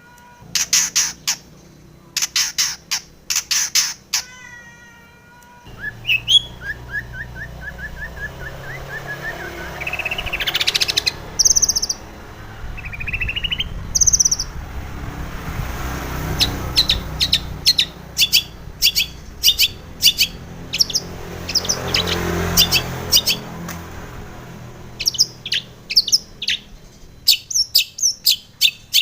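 Long-tailed shrike (cendet) singing: harsh, rapid repeated calls, quick chattering note series and sharp chirps, with a steady background hiss from about six seconds in.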